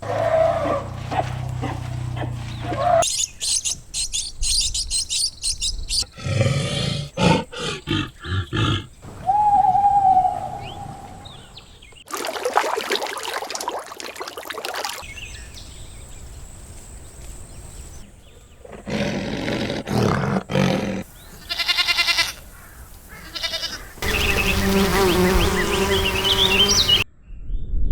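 A run of different animal calls in short clips of about three seconds each, cut one straight after another, some pitched and wailing, some noisy or rapidly pulsing.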